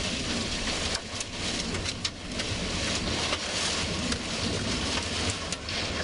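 Rain and wind beating on a moving car's windows and roof over the low rumble of the car on the road, with a few sharper hits of drops against the glass.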